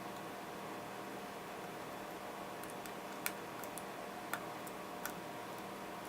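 Scattered small, sharp clicks and taps from small tools and parts being handled on an opened laptop, over a steady low hiss. The loudest click comes about halfway through.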